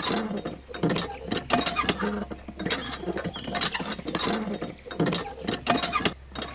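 Miniature DIY hand pump being worked by hand: its handle mechanism clicks in repeated strokes, roughly two a second, priming the pump before water flows.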